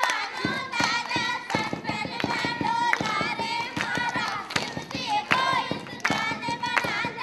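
A group of children singing a song together and clapping their hands along with it.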